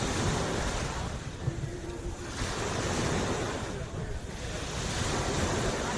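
Small sea waves washing onto the shore in swells about every two and a half seconds, with wind buffeting the microphone as a steady low rumble.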